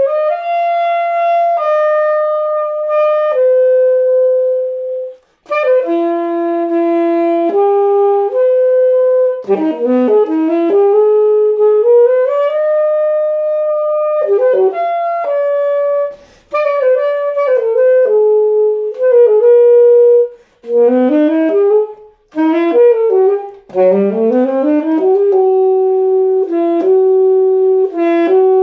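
Solo saxophone playing an unaccompanied melodic line: held notes joined by quick runs that slide down and back up, in phrases broken by short pauses for breath.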